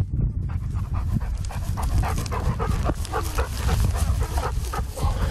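German wirehaired pointer (drahthaar) panting hard and rhythmically while running close by through grass, over a steady low rumble.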